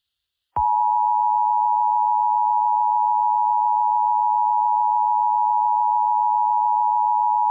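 Emergency Alert System attention signal: a steady two-tone beep of 853 and 960 Hz sounding together, starting about half a second in and holding unchanged. It is the alert tone that precedes the spoken warning.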